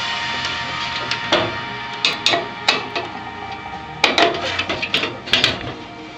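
Irregular clicks and clatter of metal parts being handled in a Dell desktop computer case, starting about a second in; steady background music at first.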